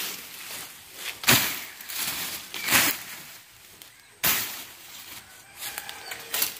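Long-handled billhook, a sickle blade on a metal pipe handle, swung into leafy weeds and brush. Three swishing chops through the stems about a second and a half apart, the last one sharper, with leaves rustling between.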